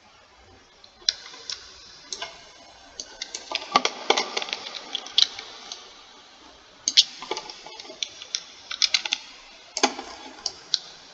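Computer keyboard keys and mouse buttons clicking in irregular clusters, starting about a second in.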